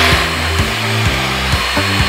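Handheld electric mixer running at top speed, its beaters whipping egg whites in a glass bowl until they foam up, a steady whir under background music with low held notes.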